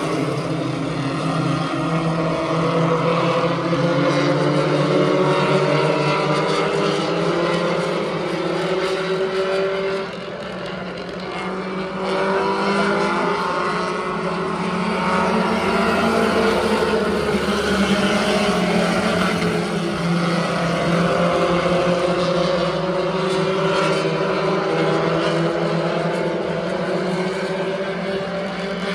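A field of pure stock race cars running laps together, several engines overlapping and rising and falling in pitch as they go around.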